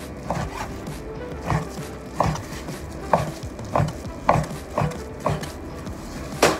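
Knife slicing through raw pork tenderloin and striking the cutting board, about one stroke every half second, with one sharper, louder knock near the end.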